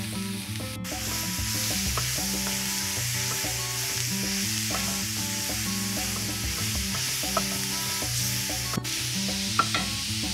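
Sliced beef, peppers and onions sizzling in a hot cast-iron skillet as they are stirred together, with a few light clicks near the end. Soft background music plays underneath.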